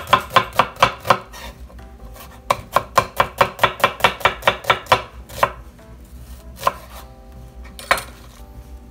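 Chef's knife chopping red onion on a wooden cutting board: rapid sharp knocks about five a second in two runs, the second lasting a couple of seconds, then a few single knocks toward the end.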